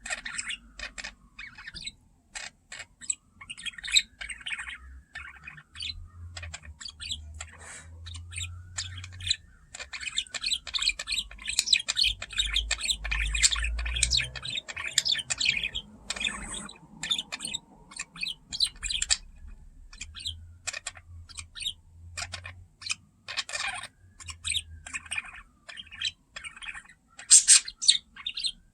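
A pair of budgerigars chirping and chattering in rapid short tweets, with busy bursts of chatter in the middle and again near the end, while one cracks seeds.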